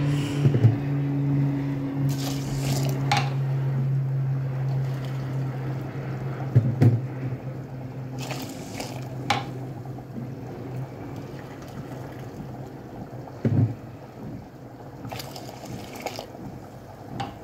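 Water poured from a small metal measuring cup into a pot of rice in several separate pours a few seconds apart, with a few short knocks in between. A low steady hum runs underneath and fades out about halfway through.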